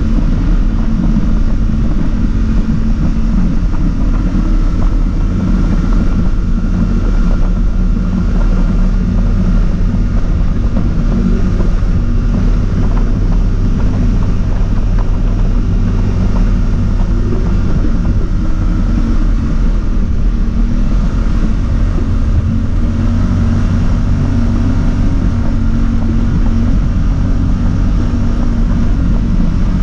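ATV engine running steadily while the quad is ridden along, a constant low drone that holds its pitch, with wind noise on the microphone.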